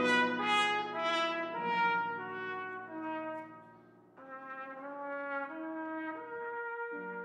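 Trumpet playing a classical melody with piano accompaniment: loud, bright held notes at first, falling away to a brief near-silent pause about four seconds in, then quieter sustained notes resume.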